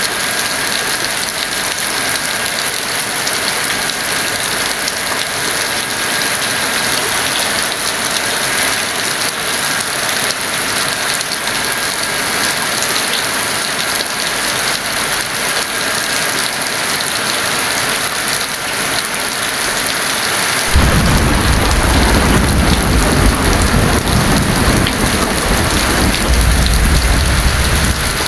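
Heavy rain falling steadily. About three-quarters of the way in, a deep thunder rumble comes in suddenly and rolls on under the rain, swelling again near the end.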